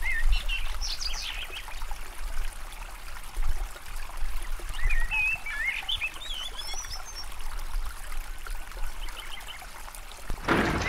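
Shallow stream trickling over pebbles, with birds chirping in short warbling phrases, mostly around a second in and again about five to six seconds in. Just before the end a louder, steady noise cuts in abruptly.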